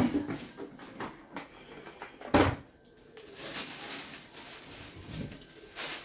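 Two sharp knocks about two and a half seconds apart, then a steady hiss for the last few seconds.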